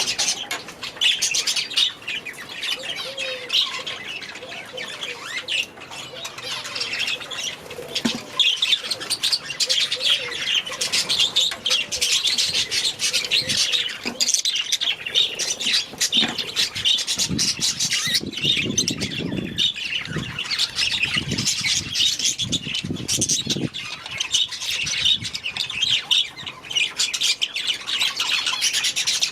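A flock of budgerigars chattering and squawking continuously, many birds at once. Some lower, muffled thumps come in for a few seconds around the middle.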